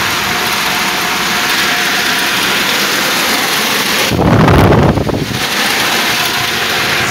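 Belt-driven squirrel-cage blower fan running: a steady rush of air with a faint hum from the motor. About four seconds in, the blast from the fan's outlet buffets the microphone for about a second.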